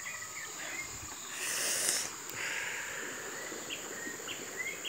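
Steady high-pitched insect drone with a bird calling in short repeated chirps. About one and a half seconds in there is a brief rushing hiss.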